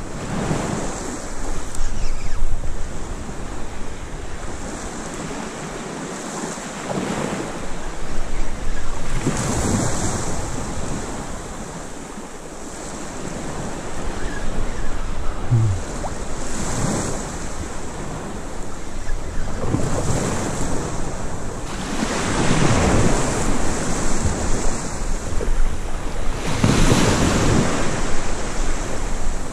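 Sea waves breaking and washing on the beach in repeated surges every few seconds, with wind buffeting the microphone.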